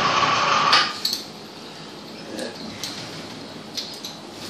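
Spray rinse hissing with a steady tone, cutting off suddenly about a second in. Then a few light clinks and knocks as the lifting straps are handled against the aluminium engine block in the rinse tank.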